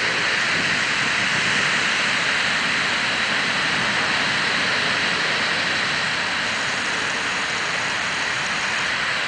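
Ocean surf breaking and washing up onto a sandy beach, a steady rush of noise.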